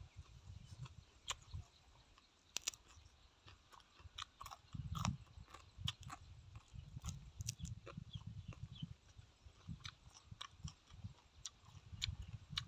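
Close-up chewing and mouth sounds of a man eating seafood salad by hand: wet smacks and scattered short crunches and clicks.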